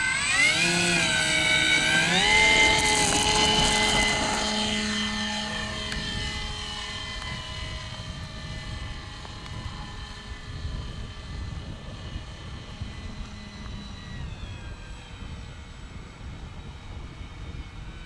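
Radio-controlled model aeroplane flying overhead, its motor and propeller giving a whining drone. The pitch rises over the first couple of seconds, the sound is loudest a few seconds in, and it then fades steadily as the plane flies away.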